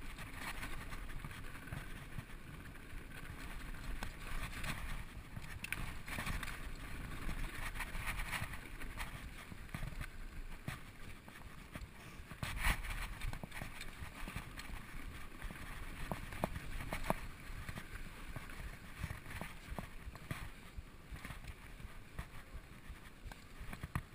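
Specialized SX Trail mountain bike descending dry, rocky dirt singletrack: tyres rolling over dirt and stones, with frequent sharp rattles and knocks from the bike and wind on the helmet-camera microphone. The sharpest knock comes about halfway through.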